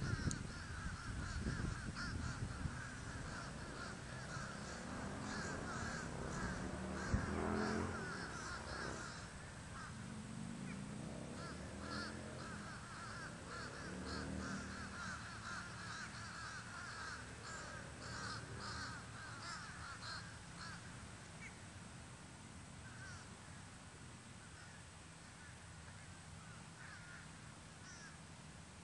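Small Atomik Barbwire RC boat's electric motor buzzing as the boat runs out on a pond, its pitch rising and falling a couple of times. The sound slowly fades over the second half.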